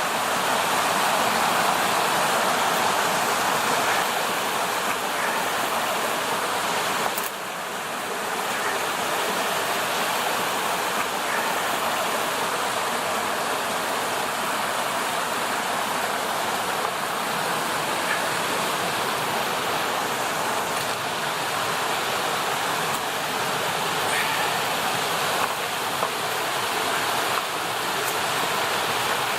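Creek water running over small rocky cascades: a steady rush with a brief dip in level about seven seconds in.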